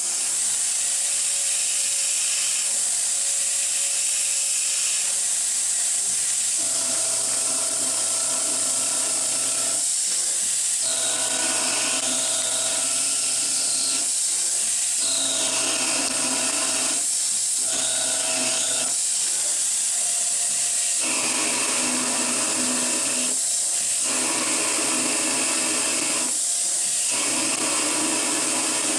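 Novakon Torus Pro CNC mill running in lathe mode: a steady high hiss from the machine, with whirring pitched tones that start and stop every one to three seconds as it moves and cuts.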